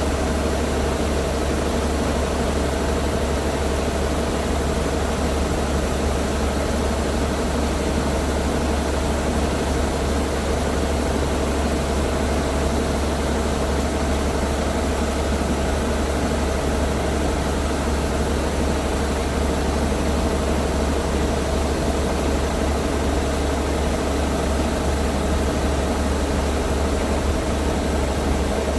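LS MC85 combine harvester running steadily: a deep, even engine hum with a steady higher mechanical tone over it, unchanging throughout.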